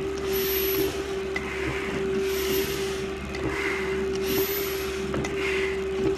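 Hard breathing through a firefighter's full-face breathing-apparatus mask during a stair climb, a hissing breath about every second, over a steady machine hum.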